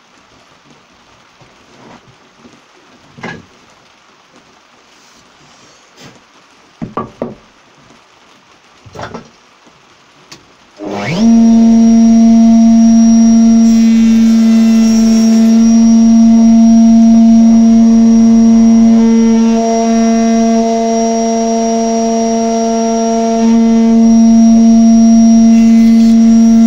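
A few light knocks and clicks, then about eleven seconds in a table-mounted router switches on, winds up to speed and runs with a loud, steady whine. A board is fed past the cutter along the fence to cut a groove.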